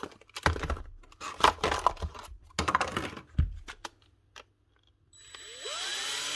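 Metal clicks and knocks of a drill chuck being handled and fitted onto a DeWalt cordless drill, then about five seconds in the drill's motor starts and winds up in speed.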